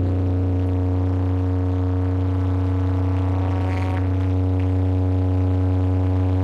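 Doom metal band's amplified drone: several steady held notes with a heavy low bass, sustained without drum hits.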